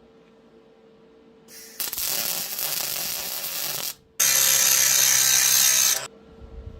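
A cordless impact driver hammering bolts tight in two bursts of about two seconds each, with a brief pause between them, clamping the chainsaw bar in the mill.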